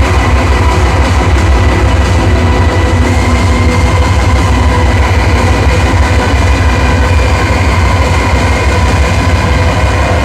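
Live drone metal / noise music: a loud, dense wall of distorted sound over a heavy, throbbing low rumble, with sustained tones held above it.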